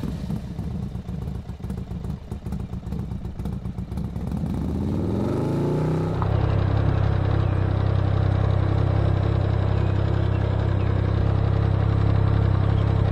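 Can-Am Ryker three-wheeled motorcycle engine running unevenly, then revving up with a rising pitch about four to six seconds in as it pulls away. From about six seconds on, the engine holds a loud, steady drone while riding.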